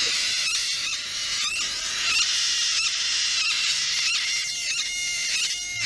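High chirping animal calls repeating about every three-quarters of a second, over the steady hiss of a gas torch flame heating a radiator tank seam.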